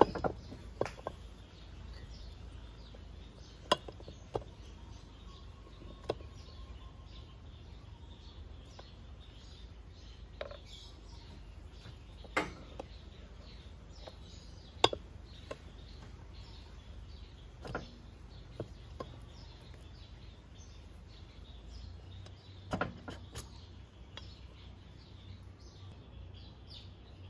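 Scattered sharp metal clicks and knocks, a dozen or so at irregular intervals, as the Honda Ruckus/Zoomer 50 engine's crankshaft is worked loose from its crankcase half and lifted out.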